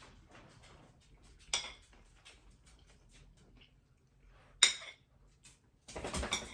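A metal utensil clinks against a plate twice, the second clink louder, then clatters and scrapes briefly near the end while a portion of macaroni salad is taken to taste.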